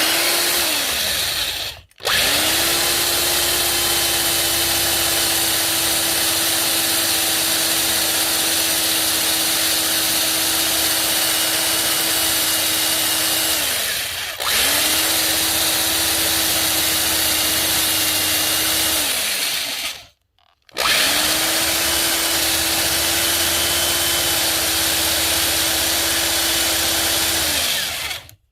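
Electric drill drilling holes in a seat bracket, running in four bursts: a short one at the start, then three long runs, each spinning up to a steady hum and winding down between them.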